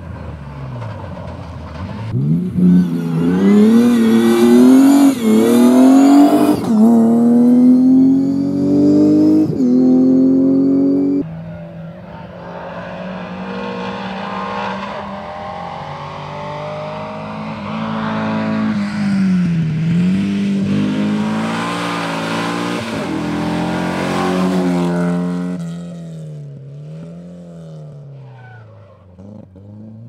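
Rally car engines accelerating hard, the pitch climbing and dropping back at each gear change. About eleven seconds in the sound changes abruptly to another, quieter car that lifts off and accelerates again, and near the end a more distant engine revs with a wavering pitch.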